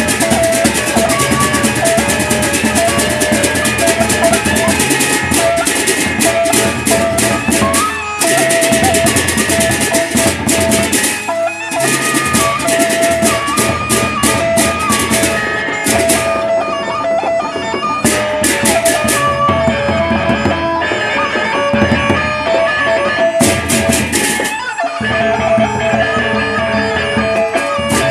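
Sasak gendang beleq ensemble playing: large barrel drums beaten with sticks, pairs of hand cymbals clashing rapidly, and gongs, over a held melodic line. The cymbal clashing thins out about halfway through, and the music dips briefly a few times.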